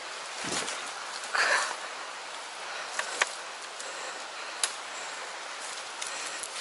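Footsteps pushing through tall dry grass and reeds: rustling, with a louder brush of stems about a second and a half in and a few sharp snaps later, over a steady hiss.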